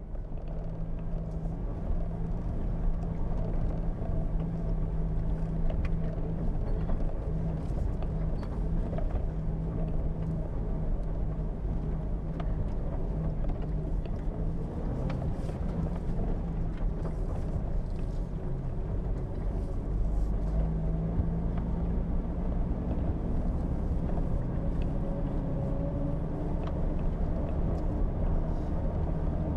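Jeep Wrangler engine running at a steady pace while driving a rough dirt track, with a low rumble and scattered clicks and rattles.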